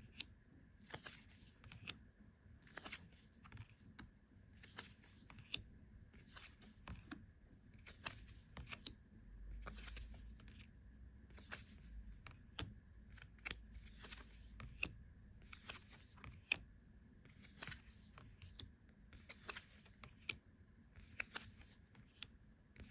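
Oracle cards being handled one after another: faint soft clicks and swishes of card stock as each card is slid off the deck and laid on the pile, a few every couple of seconds.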